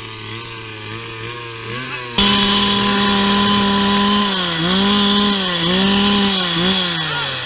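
Small two-stroke petrol engine idling, then revved hard about two seconds in and held at high revs, dipping and recovering three times before dropping back toward idle near the end.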